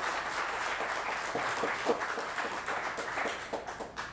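A small audience applauding with many hands clapping, the applause fading away near the end.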